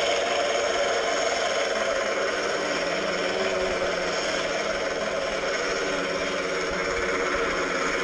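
Quadcopter flying overhead, its electric motors and propellers whirring, mixed with a simulated helicopter engine played by an onboard MrRCSound V4.1 sound system through transducers mounted on a foam resonator. The sound runs steadily without a break.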